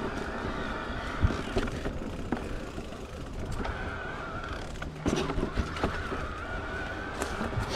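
Niner e-RIP9 electric mountain bike riding a dirt trail: a wavering mid-pitched whine from its mid-drive motor over the rumble of the tyres, with sharp knocks and rattles from bumps, a cluster of them about five seconds in.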